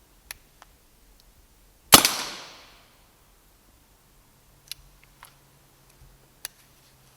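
A single shot from a Brocock Ranger XR pre-charged pneumatic air rifle about two seconds in: one sharp crack that dies away over about a second. A few faint clicks come before and after it.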